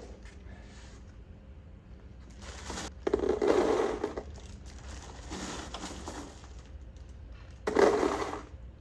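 Cardboard box of loose steel hardware being set down and settled on top of a stack of sandbags. The steel shifts inside the box in a loud burst about three seconds in that lasts about a second, with a softer one between and another loud one near the end.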